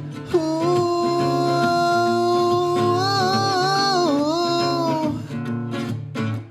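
A man's voice holds one long wordless sung note, wavering and bending down near the end, over a strummed acoustic guitar.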